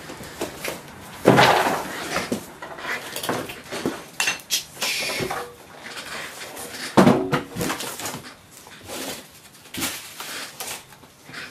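Rummaging: scattered knocks, clatter and a scraping rustle as objects are moved about and a piece of cardboard is fetched, with two louder knocks about a second in and about seven seconds in.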